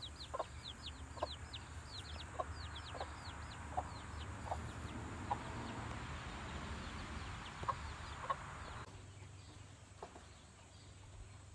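Young chickens peeping and clucking: a quick run of high, falling peeps that thins out after about five seconds, with short low clucks every half second or so. A steady hiss under them cuts off abruptly about nine seconds in.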